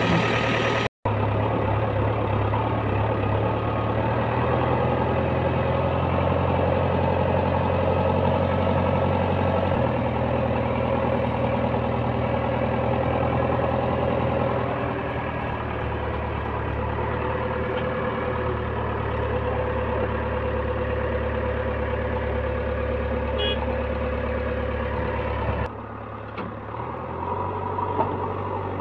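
JCB 3DX backhoe loader's diesel engine running steadily, its note shifting a few times. The sound drops out for a moment about a second in and turns quieter near the end.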